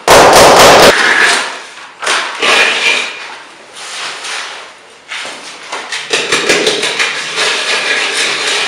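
Hand trowel scraping and smoothing wet concrete, a gritty rasping that becomes steady from about six seconds in. It opens with a loud rough burst about a second long.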